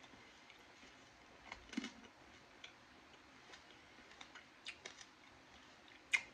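Someone chewing frozen candy-coated grapes close to the microphone: scattered crisp cracks and clicks of the hard candy shell, the loudest near the end.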